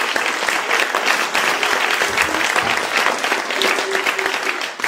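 Theatre audience applauding, a dense steady clatter of many hands clapping that begins to die down near the end.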